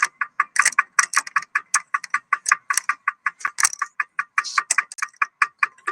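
Rapid, fairly even clicking, several sharp clicks a second throughout.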